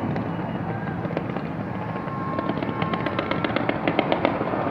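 Fireworks display going off, with a dense run of crackling bursts beginning about halfway through over a steady background of explosions.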